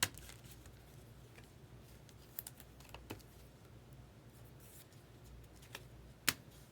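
Scattered light clicks and taps of trading cards and rigid plastic top loaders being handled, with the sharpest click about six seconds in.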